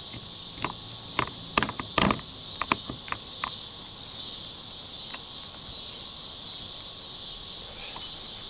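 Steady high-pitched insect chorus, with a cluster of sharp clicks and knocks in the first three seconds or so, then a few isolated ticks.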